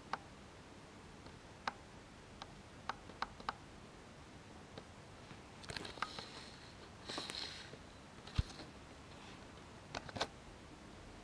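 Scattered light clicks and taps from handling, with two brief rustles of paper or card about six and seven seconds in and one sharper knock just after. No steady motor hum of the train running.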